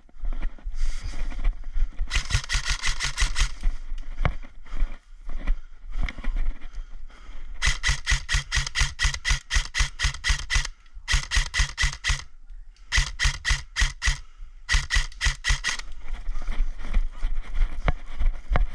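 Airsoft gun firing on full auto in five bursts of one to three seconds, each a rapid, even rattle of shots, over low thumps throughout.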